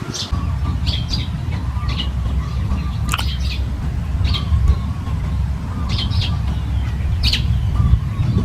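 A bird chirping, short high chirps repeated every half second to a second, over a steady low rumble that is the loudest thing throughout.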